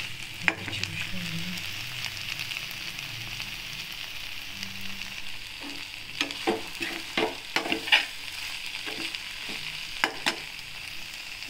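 Eggplant curry in onion-tomato masala sizzling steadily in a metal pan while a steel spoon stirs it. The spoon scrapes and knocks against the pan, once about half a second in, several times between about six and eight seconds, and twice around ten seconds.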